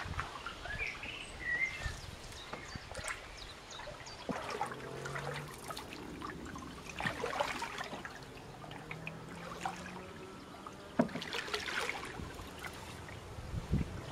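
Wooden canoe paddle stroking through river water, with a splash every few seconds and water trickling off the blade between strokes.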